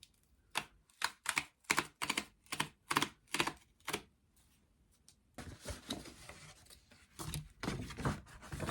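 Cardboard album packaging being torn open along its perforated tear-away tab. It makes a run of sharp snapping tears, about two or three a second. From about halfway through comes a steady rustle of the packaging being handled and opened.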